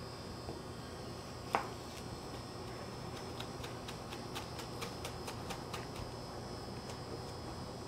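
Kitchen knife slicing green onions on a cutting board: one sharper knock about a second and a half in, then steady chopping taps of the blade on the board, about three a second, from about three seconds in.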